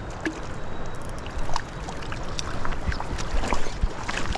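Mountain stream water rushing steadily, with a scattering of small sharp clicks and knocks through it.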